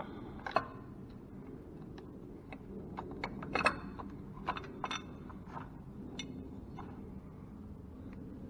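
Hand tools clinking and tapping against metal engine parts as a cracked oil filter housing is worked loose: a dozen or so short sharp clicks at uneven intervals, the loudest about three and a half seconds in, over a steady low background noise.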